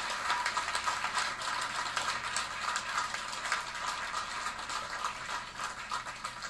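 Applause: many hands clapping, thinning out and dying away near the end.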